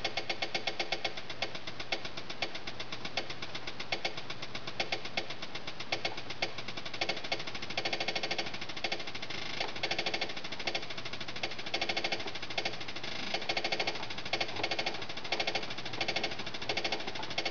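Electronic drum pattern played by a Beat707 Arduino drum sequencer: a fast, steady run of drum hits with short pitched tones. The pattern shifts as the sequence's number of steps is changed on the fly.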